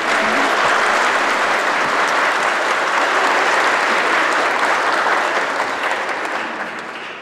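A congregation applauding, dense and steady, then dying away over the last couple of seconds.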